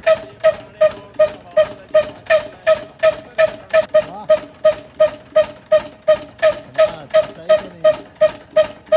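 Old hand-cranked stationary engine with a heavy flywheel catching and running at a slow, even beat of nearly three sharp exhaust pops a second.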